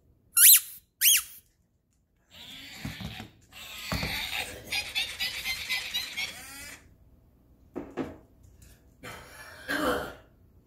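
Squeakee interactive balloon-dog toy making its balloon-squeak sounds: two short, high squeaks about half a second apart, then a few seconds later a longer run of rubbery squeaking as it moves, with scattered shorter squeaks and clicks afterwards.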